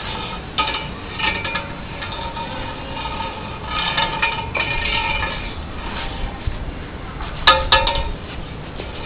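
A long pole clinks twice in quick succession against a concrete floor near the end. A steady droning hum runs underneath.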